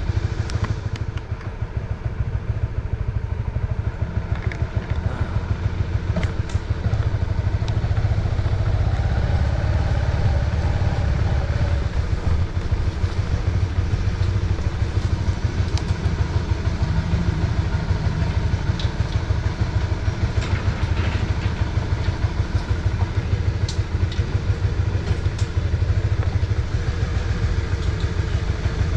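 Honda CB150R's single-cylinder engine running steadily with a low, pulsing rumble.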